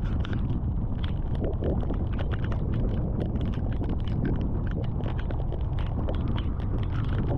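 Car driving slowly on a wet gravel road in heavy rain, heard from inside the cab: a steady low rumble of tyres and engine under a dense, irregular patter of raindrops hitting the windshield and roof.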